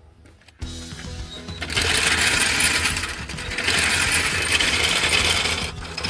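Harsh metalworking noise on the exhaust in two long stretches, about a second and a half and then two seconds, over steady background music.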